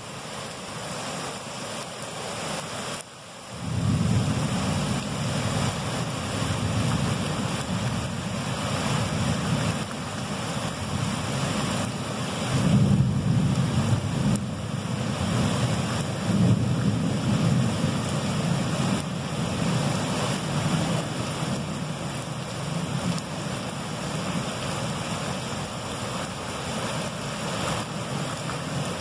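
Heavy rain pouring down and floodwater rushing along a flooded street, heard as a steady hiss, with wind buffeting the microphone as a low rumble from about three and a half seconds in.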